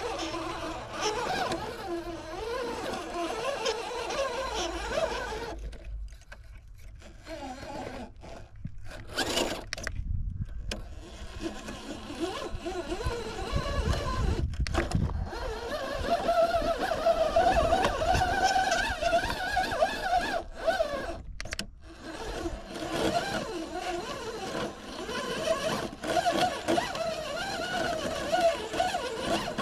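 Radio-controlled car driving, its motor whine rising and falling in pitch with the throttle, with a few short breaks.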